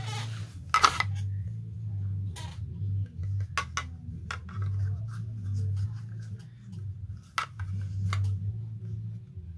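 Scattered light clicks and taps of small plastic toy hands being handled on the fingers, over a low steady hum.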